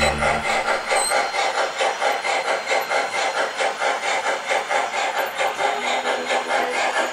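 HO scale model steam locomotive running with a steady rhythmic chuff, about four beats a second.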